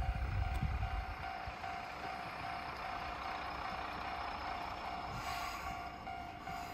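A railway level-crossing alarm sounding a steady repeated tone, a few strokes a second, as a single-car diesel railcar approaches; the railcar's low running noise lies beneath it.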